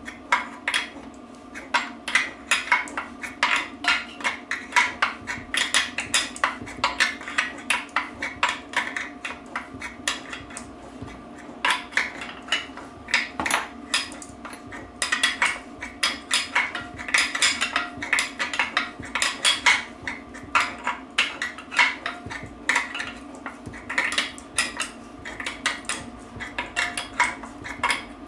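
Rapid metallic clicking and clinking of spanners working the nut on a drawbolt, plate and washer as a sleeve bearing is pulled into a BSA B25 Starfire gearbox casing. The clicks come in runs of several a second with short pauses, over a steady hum.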